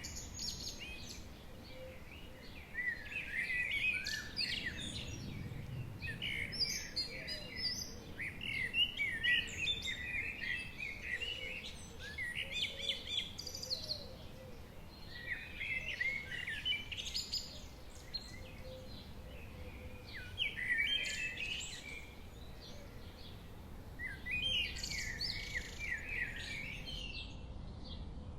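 A songbird singing, a short phrase of rapid chirping notes repeated every three to four seconds, over a faint steady background hiss.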